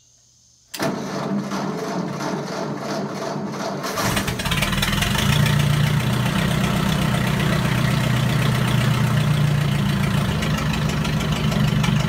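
1963 Ford 2000 tractor's gasoline engine cranked by its starter from just under a second in, catching at about four seconds and settling into a steady idle. It starts and runs on its newly fitted ignition coil.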